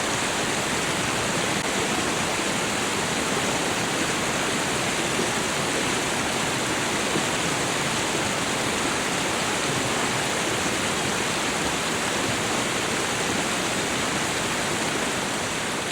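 Steady rushing of a small waterfall and fast-running meltwater stream, a dense, even splashing noise with no change.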